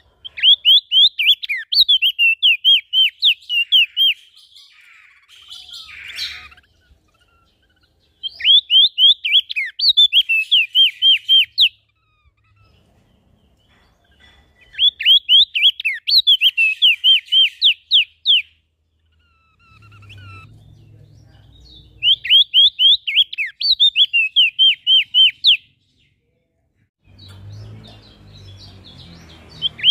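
A songbird repeats a fast phrase of high, downward-slurred notes, about eight a second for three to four seconds, four times with pauses between. A rougher call comes briefly about five seconds in.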